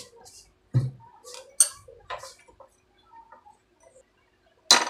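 Metal spoon clinking and scraping against a ceramic plate as salt is mixed into coarsely ground green chutney: a few light taps and a sharper clink near the end.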